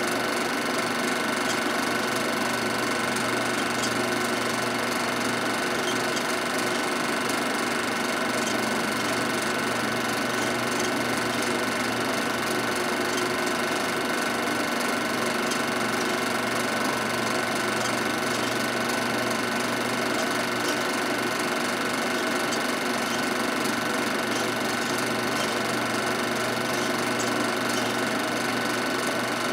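Film projector running: a steady mechanical whir and motor hum with several constant tones, unchanging in level.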